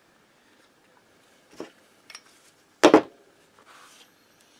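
A few knocks and clicks of hand tools and metal engine parts being handled on a wooden workbench, the loudest a sharp knock about three seconds in, followed by a short faint scrape.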